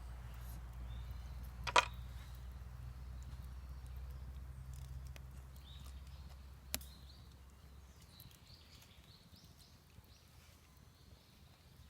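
Two sharp knocks about five seconds apart, the first the louder, over a low steady rumble that stops about eight seconds in, with faint bird chirps near the end.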